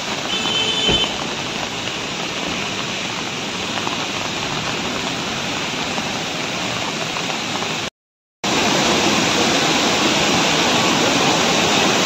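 Steady hiss of rushing water, with a half-second break in the sound about eight seconds in, after which it is a little louder.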